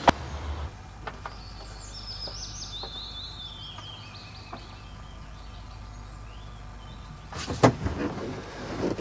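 A car door shuts with a sharp slam over a low engine rumble that stops within the first second. Birds then sing in a series of high chirps stepping down in pitch. About three-quarters of the way through there is a loud thump.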